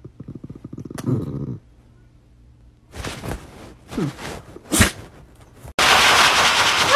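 A dog growls in short low pulses for about a second and a half, followed by a few seconds of scuffling. About six seconds in, a pet grooming dryer's hose starts blowing with a loud, steady rush.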